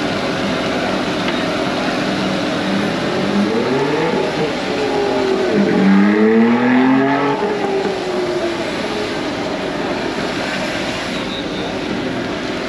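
Street traffic noise with a motor vehicle's engine revving up and down as it passes, loudest about six to seven seconds in.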